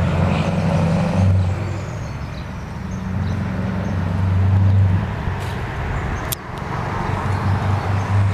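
Scania 143-420 truck's 14-litre V8 engine, on a straight pipe, rumbling as it pulls away out of sight, its heavy low note swelling and dropping back several times and loudest about halfway through.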